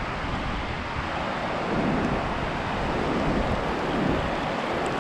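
Steady rush of river water pouring over a low concrete dam and running fast below it, with an unsteady low rumble of wind on the microphone.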